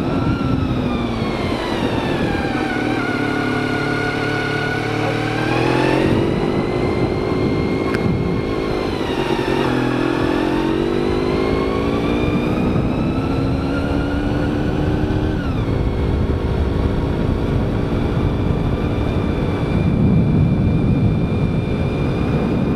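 Motorcycle engine heard from the rider's seat, its pitch falling as it slows, holding low, then rising and falling again with the throttle; about fifteen seconds in the pitch drops abruptly at a gear change and then holds steady. Wind rush runs underneath, and the sound cuts off suddenly at the end.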